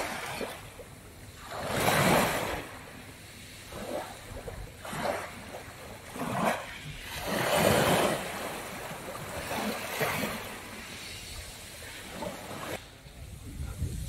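Small sea waves breaking and washing up a pebble beach. The two biggest come about two seconds in and just past halfway, with lighter washes between.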